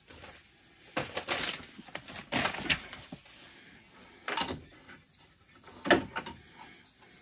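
Plastic radio mounting bracket being worked loose and pulled from a dashboard's radio opening: four short spells of plastic knocking, clattering and scraping, the loudest about six seconds in.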